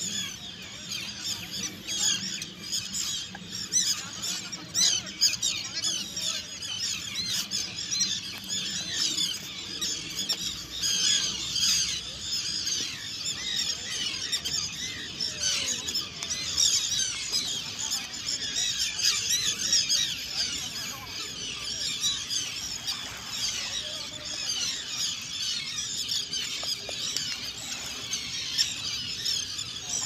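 A large flock of seabirds calling over the water: many overlapping shrill, squealing calls, keeping up a continuous chorus.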